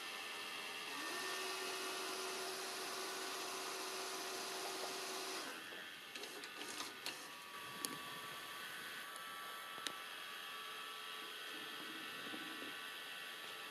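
Small motors of a Mitsubishi M1000 S-VHS video recorder's tape mechanism whirring steadily, with a cluster of sharp mechanical clicks and ticks about six to ten seconds in.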